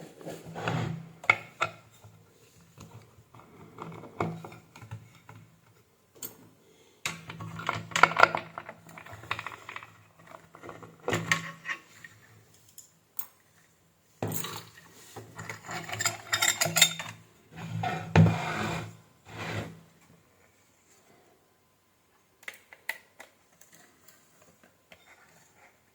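Metal clattering and clicking in irregular bursts, as tools and metal parts of a car audio power amplifier are handled during disassembly, with a quiet pause near the end followed by a few light clicks.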